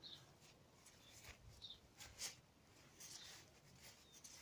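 Near silence, with a few faint short high chirps and light ticks.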